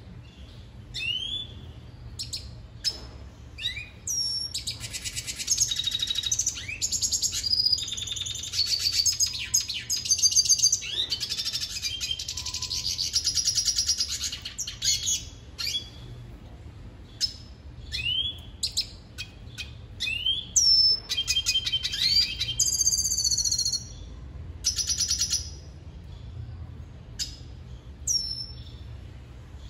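Male red siskin singing: a long twittering song of rapid buzzy trills and chatter mixed with short rising call notes, in two long bouts with single notes between. It is his courtship song to a female.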